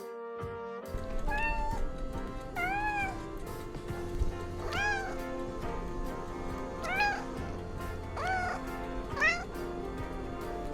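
Domestic cat meowing six times, each meow rising then falling in pitch, over background music.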